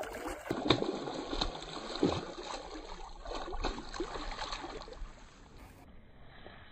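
Hooked red-bellied pacu thrashing and splashing at the water's surface as it is hauled in on a rod: a run of irregular splashes, loudest about a second in, that die away about five seconds in as the fish is lifted clear.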